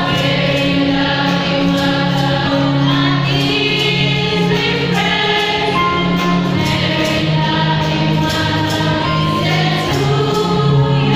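A choir singing in long held notes.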